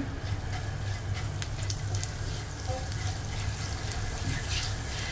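Cumin seeds and asafoetida sizzling in hot oil in a nonstick frying pan, with many small crackles as a silicone spatula stirs them. This is the tempering stage, with the cumin browning in the oil. A low steady hum runs underneath.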